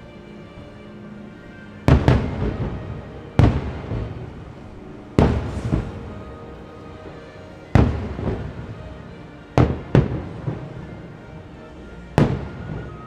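Aerial firework shells bursting: seven sharp bangs at irregular intervals, two of them close together near the end. Each is followed by crackle and a rolling echo that fades over about a second.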